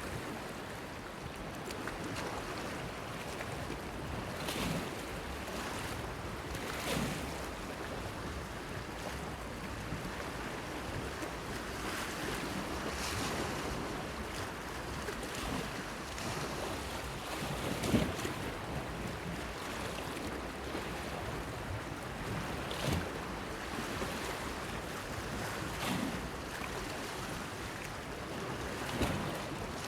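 Sea waves washing and splashing against a breakwater: a steady wash with a handful of sharper splashes, the loudest about 18 seconds in. Wind buffets the microphone.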